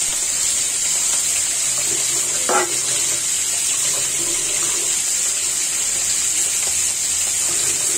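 Tap water running steadily as a plate is rinsed, over the continuous sizzle of fish frying in hot oil.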